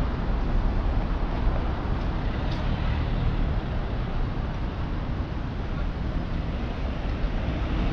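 City street traffic, with cars driving past a pedestrian crossing, and a steady low rumble of wind on the microphone.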